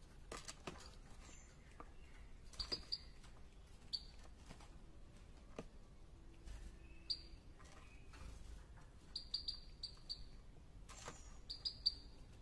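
Common blackbird giving short, sharp, high call notes, singly and in quick runs of three or four, with faint scattered clicks and taps between them.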